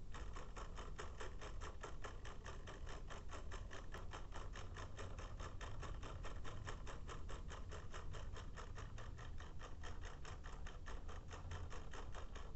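Quartz wall clock's stepping movement ticking rapidly and evenly, about five ticks a second, as an ESP32 drives its second hand in reverse far faster than normal timekeeping.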